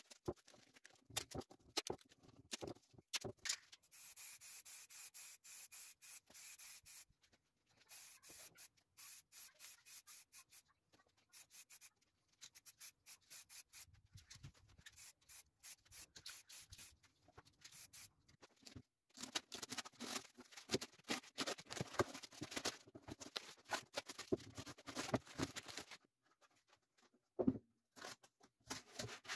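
Faint rubbing, rustling and crackling of masking tape and paper being pressed onto and peeled off a 3D-printed plastic hull, coming in spells with short pauses between them.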